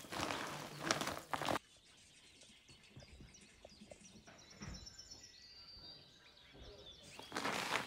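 Outdoor ambience: a loud rustling, crunching noise for the first second and a half and again near the end, with faint bird chirps in the quieter stretch between.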